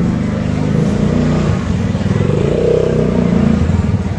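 A motor vehicle's engine running as it passes close by in a busy street.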